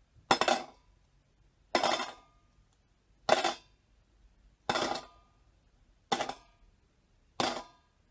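Toy pirate coins dropped one at a time into a bucket: six sharp clinks about a second and a half apart, each with a short bouncy rattle as the coin settles.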